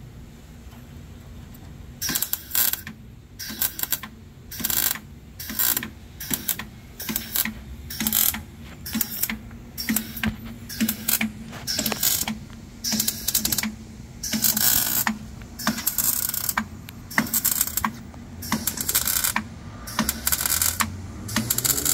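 Air tool fed by a hose from a portable compressed-air tank, worked in short bursts of about one a second starting a couple of seconds in, as fasteners on the car's front end are run.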